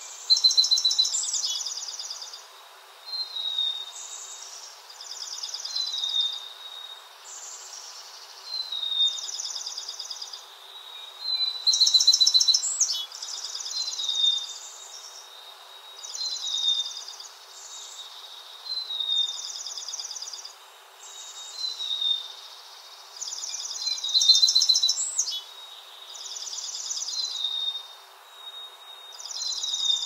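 A small streak-breasted songbird singing, repeating a short phrase every one and a half to two seconds: a falling whistled note and a fast, high trill.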